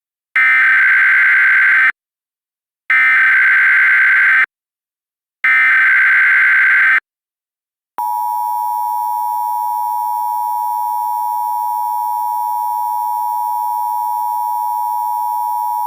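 Emergency Alert System activation tones. Three identical screeching SAME header data bursts of about a second and a half each, separated by short silences, mark the start of an alert. About eight seconds in, the steady two-tone EAS attention signal (853 and 960 Hz) begins and holds for about eight seconds.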